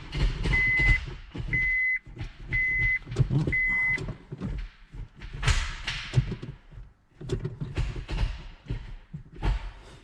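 Honda Civic cabin warning chime beeping about once a second, four times, among clicks and thumps from inside the car; the beeping stops about four seconds in, and a scatter of clunks and rustling follows.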